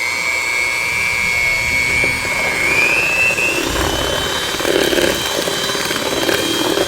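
Electric hand mixer running, beating whipped topping with instant chocolate pudding until creamy. A steady motor whine that steps up in pitch about three seconds in.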